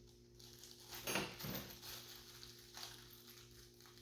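Faint handling noises of small plastic heater-kit parts: light clicks and rustles, the loudest about a second in, over a low steady hum.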